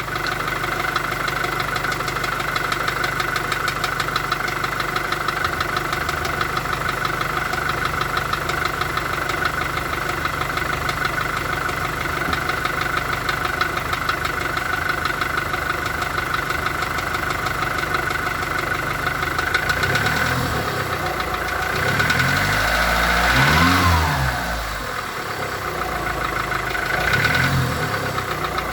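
Volkswagen Golf IV 1.4 16V four-cylinder petrol engine idling with a knock in the engine, a fine regular ticking over the running. After about twenty seconds it is revved up and let fall back several times, the highest rev about three-quarters of the way through.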